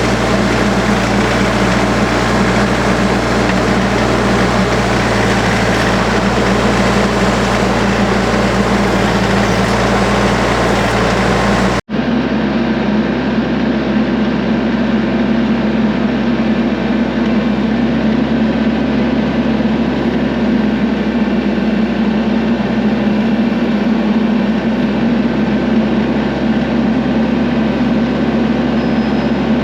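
An engine running steadily at a constant speed. About twelve seconds in it cuts out for an instant and resumes with a slightly different tone.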